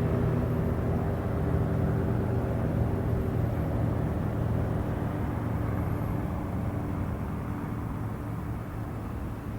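Police helicopter flying over, its rotor and turbine drone slowly fading as it moves away.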